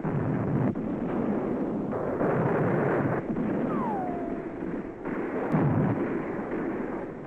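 Battle sound effects: cannon and gunfire going off again and again, a new blast about every one to two seconds, with a short falling whistle about halfway through.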